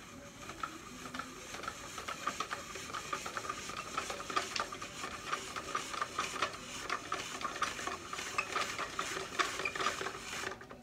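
Yellow squash being cut into noodles on a countertop spiralizer: a rapid, continuous rasping scrape of the blade through the squash, which stops near the end.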